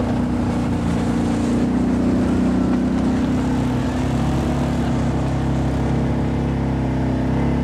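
2010 Kawasaki Teryx side-by-side's V-twin engine running steadily while driving, heard from the seat, its pitch shifting slightly with the throttle.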